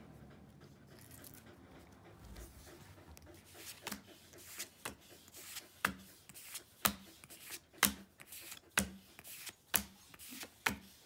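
Pokémon trading cards being flipped through one at a time, each card snapping as it is slid from the front of the stack to the back. The sharp flicks begin about a third of the way in and come about once a second, after a few seconds of faint handling.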